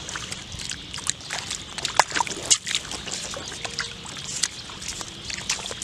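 Splashing and sloshing in shallow muddy water as hands grab a large fish, with the loudest splashes about two seconds in.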